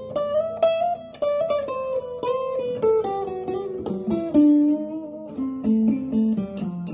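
1960s German Musima parlor acoustic guitar being played: single plucked notes in a melody that steps downward in pitch, with lower bass notes joining near the end.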